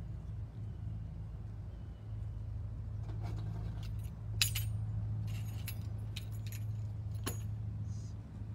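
Light metallic jingling and a few sharp clicks, over a steady low hum.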